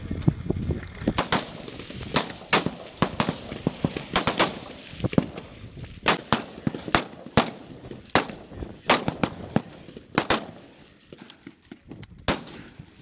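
Several M16-style service rifles firing single shots along a firing line, irregular and sometimes overlapping, about one or two shots a second, each with a short echo. The shots grow sparser near the end.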